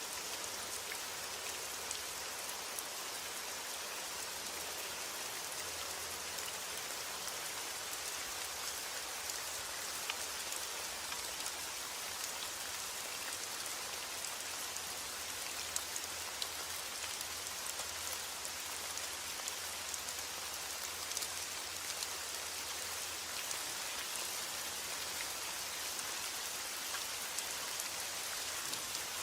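Heavy rain falling steadily with no thunder: an even hiss dotted with scattered sharp ticks of individual drops.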